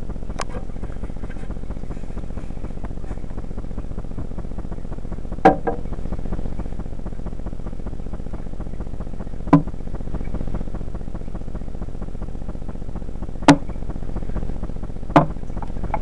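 A steady low hum runs throughout, with about five sharp knocks a few seconds apart; the loudest comes about three-quarters of the way through.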